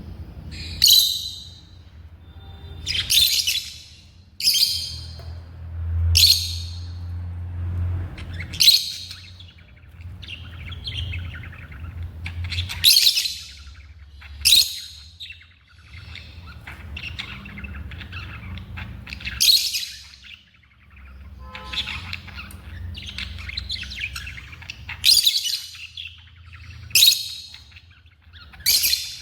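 Lovebirds chirping, with shrill high-pitched calls coming in short bursts every second or two.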